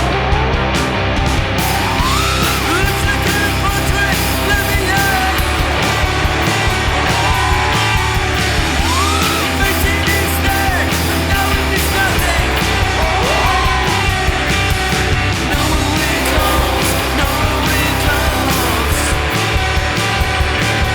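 Rock music with distorted guitar, drums and a singing voice, loud and steady throughout.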